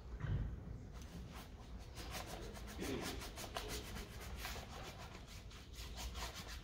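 Quick rubbing, scrubbing strokes of paint being worked onto a large canvas on an easel, a rapid run of about five short rasps a second that starts about a second in.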